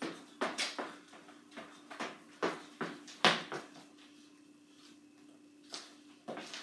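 Sneaker footfalls thudding on a hardwood floor during jogging and dancing steps, about three a second, the loudest about three seconds in, then a quiet stretch with two more steps near the end. A steady hum sits underneath.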